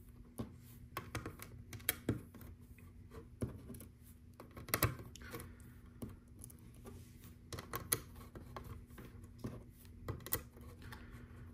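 Small round LEGO pieces clicking as they are picked from a loose pile and pressed onto a studded baseplate: irregular light plastic clicks and taps, a dozen or so spread through the stretch.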